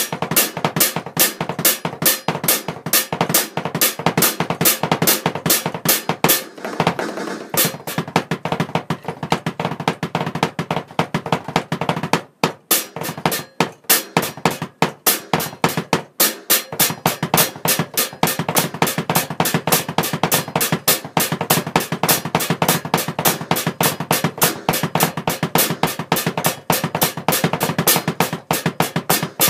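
Electronic drum kit played fast, with double-stroke bass drum work under snare hits: a rapid, even stream of drum strokes with short breaks about twelve and sixteen seconds in.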